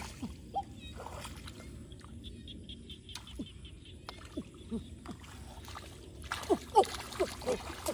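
Shallow water splashing and sloshing as a person wades and gropes with his hands through a flooded grassy field, with a flurry of quick splashes and plops near the end.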